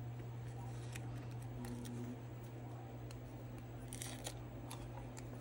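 Soft clicks and rustling of a nail polish strip being peeled off its paper backing card and pressed onto a fingernail, with a brief rustle about four seconds in. A steady low hum runs underneath.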